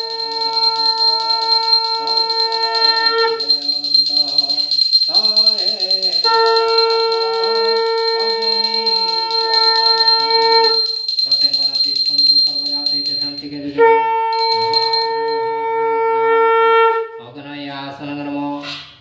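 Brass puja hand bell rung continuously, a steady high ringing that stops about two-thirds of the way through. Over it, a conch shell is blown in three long held notes.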